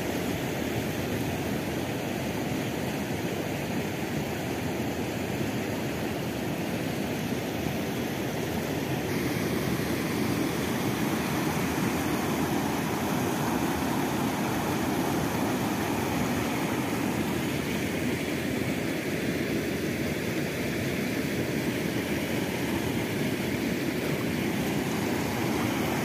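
River water rushing over rocky rapids and a small cascade over a rock ledge: a steady, even rush of moving water, changing slightly in tone about nine seconds in.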